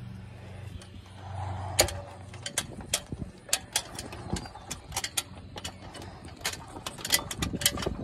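Someone climbing a ladder propped against a boat's hull: a sharp knock about two seconds in, then a string of irregular knocks and clanks from feet and hands on the rungs. A low steady hum fades out over the first two seconds.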